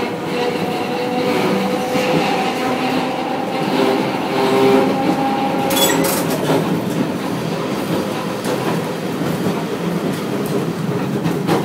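Tosa Electric Railway 700-series tram under way, heard from inside the car. The whine of its nose-suspended (tsurikake) traction motors and gearing drifts in pitch over the rumble of wheels on rail, with a few sharp clacks over rail joints about six seconds in and again near the end.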